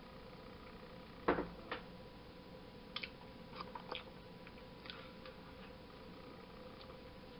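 A single sharp knock about a second in, then a smaller click and a scattered run of light clicks and taps from objects handled on a desk, over a faint steady electrical hum.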